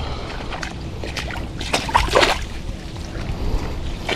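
Wind rumbling on the microphone over open water, with a short splash and slosh of shallow water about two seconds in.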